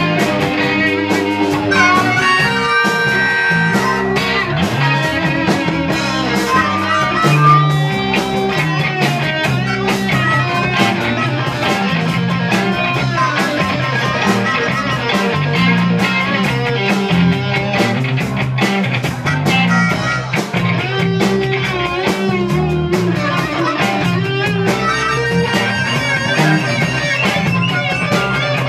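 Live blues-rock band playing without vocals: an amplified Les Paul-style electric guitar over drums and bass guitar, with a harmonica also playing.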